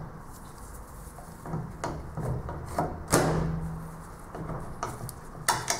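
The new yoke of a Bosch reduction-gear starter motor being slid by hand down over the armature: light scraping and a few knocks of metal housings meeting, the loudest knock about three seconds in and a quick pair of clicks near the end.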